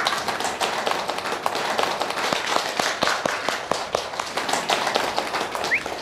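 A roomful of students clapping their hands in steady applause.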